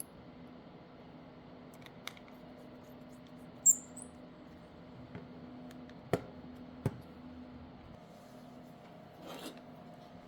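Small clicks and taps of a phone and tools being handled on a workbench during the phone repair, over a faint steady hum. The loudest is one sharp high click a little before four seconds in; two duller knocks follow around six and seven seconds, and a short scrape comes near the end.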